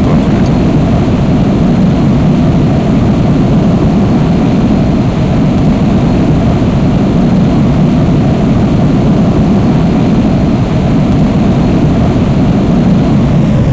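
Jet aircraft noise: a loud, steady, deep roar with no breaks.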